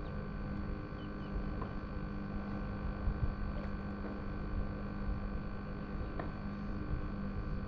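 Wind buffeting the microphone and water around a kayak, with a faint steady hum underneath and a few faint ticks.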